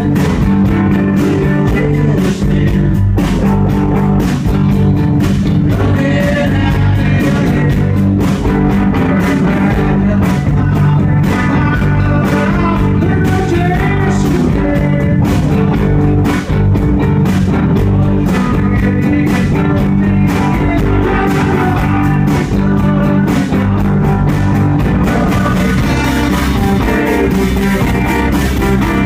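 A rock band playing live at full volume: electric guitars, a steady drum beat and a lead vocal.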